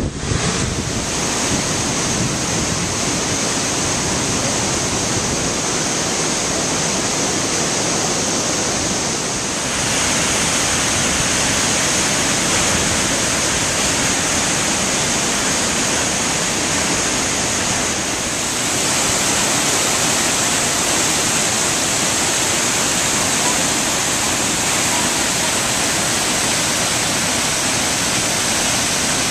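Waterfall and rushing river water, a loud, steady rush. Its tone shifts suddenly twice, about ten seconds in and again a little past halfway, getting brighter each time.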